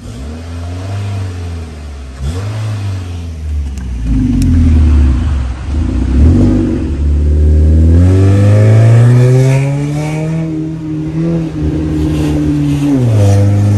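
Ford Focus ST's 2.0-litre four-cylinder engine breathing through an aftermarket valved exhaust, revving and accelerating. The exhaust note rises and falls repeatedly, climbing steadily for a couple of seconds after about 8 seconds and dropping off near the end.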